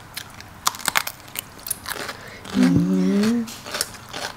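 Crunchy biting and chewing of raw green vegetables, small Thai eggplant among them, as a run of sharp irregular crunches. A short hummed voice sound comes about halfway through.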